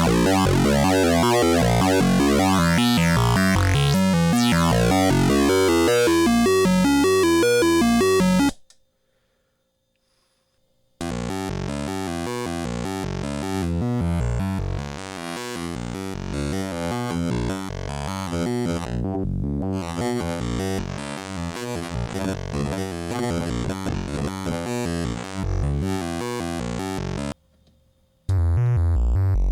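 Home-built CPU-less wavetable oscillator (flash-memory wavetable, voltage-controlled oscillator, counter and DAC) sounding a sustained note whose timbre shifts as it scans through a wavetable. It cuts off about 8 seconds in, and after a pause a new, quieter wavetable tone with a wavering timbre plays until just before the end. A third tone starts right at the end.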